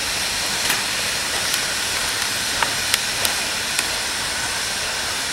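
Strasburg Rail Road No. 90, a 2-10-0 steam locomotive, moving slowly past close by, its steam hissing steadily, with a handful of sharp clicks along the way.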